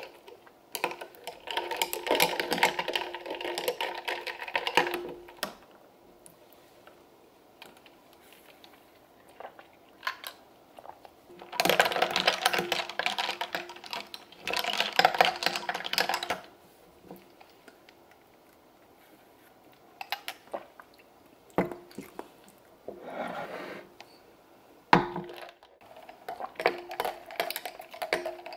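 Ice cubes clinking and rattling inside drinking glasses as iced lemonade is stirred with a glass straw. There are three spells of dense clinking, a few seconds each, with a few single clinks between them.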